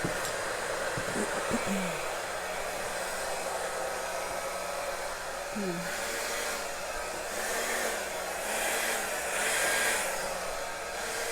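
Handheld hair dryer running steadily, blowing wet acrylic paint out across a canvas to spread the colours, with louder stretches near the end.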